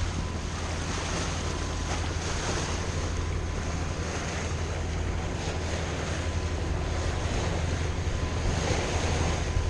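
Sailboat motoring under engine power in light wind: a steady low engine drone, with water rushing along the hull and wind buffeting the microphone.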